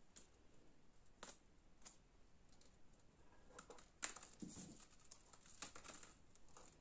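Near silence with a few faint, scattered taps and clicks, the clearest about four seconds in: small painted cups hung on rope knocking together and the rope rustling as they are handled.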